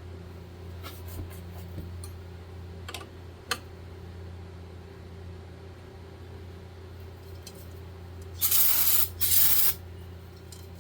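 Aerosol spray can giving two short bursts about eight and a half seconds in, after a few light clicks of tools being handled, over a steady low hum.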